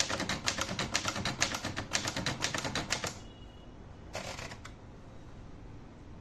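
Olivetti Lettera 22 manual portable typewriter being typed on: a fast run of key strikes that stops about three seconds in, followed about a second later by one short burst of clacking.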